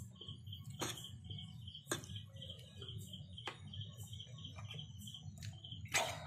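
A high chirp repeating steadily about four times a second over a low hum, broken by a few sharp clicks and knocks, the loudest about two seconds in and again near the end.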